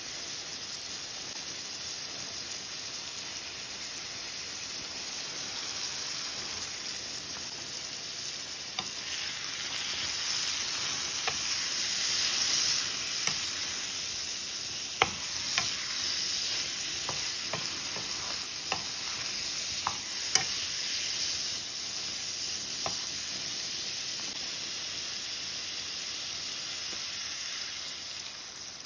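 Eggplant pieces sizzling steadily as they fry in oil with ground spices, swelling a little partway through as they are stirred. From about halfway in, the stirring utensil clicks and knocks against the pan several times.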